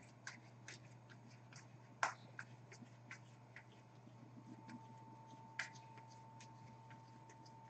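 Faint soft clicks and flicks of hockey trading cards being flipped through by hand, one at a time, with a slightly louder click about two seconds in and another past five seconds, over a faint steady hum.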